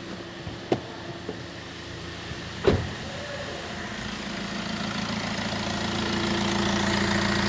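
Turbocharged car engine idling just after starting, growing gradually louder. A sharp knock about two and a half seconds in, with a lighter click before it.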